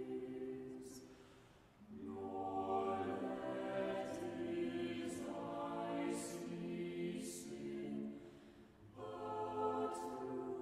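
Choir singing slow, sustained phrases, with two short pauses for breath, one about two seconds in and one near the end.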